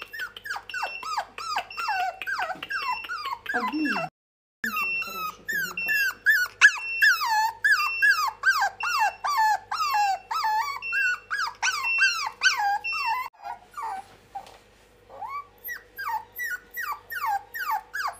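Poodle puppies whimpering and yipping: a rapid run of short, high whines that slide down in pitch, about three a second, broken once by a brief silence about four seconds in.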